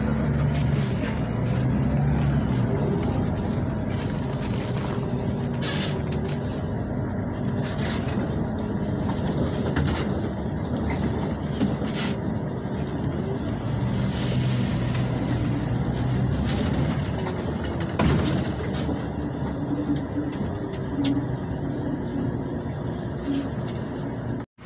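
The MAN D0836 six-cylinder diesel engine and ZF automatic gearbox of a LiAZ 6213.21 articulated city bus, heard from inside the passenger cabin as the bus drives in traffic, its note rising and falling with speed. A few sharp knocks and rattles from the cabin stand out, the loudest about two-thirds of the way through.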